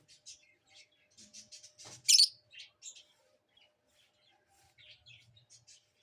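Pet lovebirds chirping in a run of short, high chirps, with one much louder, harsher call about two seconds in.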